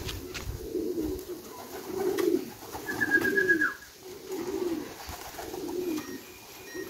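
Racing pigeons at the loft cooing, a low call repeated about once a second. A short high steady note comes in about three seconds in.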